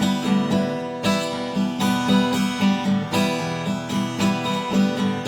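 Acoustic guitar playing a steady, evenly repeating picked or strummed pattern in instrumental background music.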